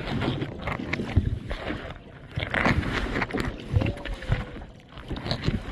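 Kayak paddle strokes dipping and splashing in the water, with water sloshing and lapping around the kayak. The splashes swell twice, at the start and again about halfway through.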